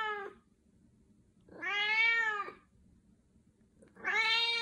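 An 18-year-old white domestic cat meowing repeatedly: drawn-out meows about a second long, each rising and falling slightly in pitch. One ends right at the start, a full one comes in the middle, and another begins near the end.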